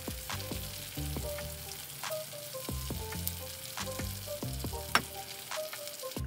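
Ground meat and tomato sauce sizzling in a frying pan on a gas stove, under background music with stepping melody notes and a bass line. There is a single sharp click about five seconds in.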